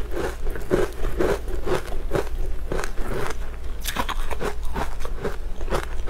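Close-miked chewing of a crunchy sweet pastry with the mouth closed, a regular run of short munching crunches. From about four seconds in, sharper crackling clicks join in.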